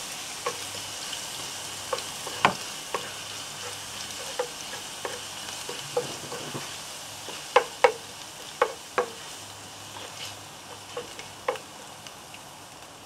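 Thinly sliced ginger sizzling in hot oil, being stir-fried until aromatic, with a utensil knocking and scraping against the pan at irregular moments as it is stirred. The sizzle eases a little toward the end.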